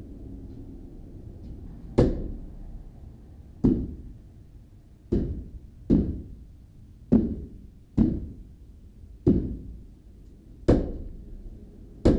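A hammer striking a timber brace, about nine blows at an uneven pace of roughly one every second or so, each with a short ringing decay.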